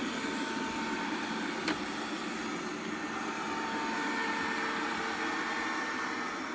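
Robit V7S Pro robot vacuum running steadily, a constant motor drone with a faint whine in it, and a single sharp click a little under two seconds in.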